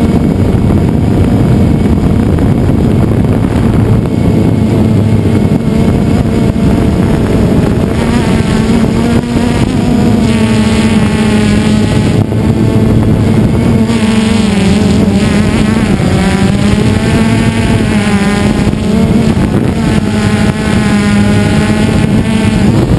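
DJI Phantom 2 Vision quadcopter's motors and propellers buzzing in flight, heard from close on the airframe, with a rush of air. From about a third of the way in, the pitch wavers up and down as the drone descends and manoeuvres.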